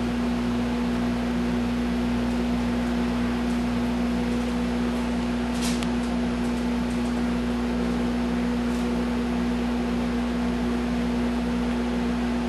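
A computer monitor's high-voltage power supply hums steadily with a low pulsing about twice a second, and there is one faint click about six seconds in. The supply is cycling, which the experimenters take as a sign that they fried something or that there is too much resistance in the lifter circuit.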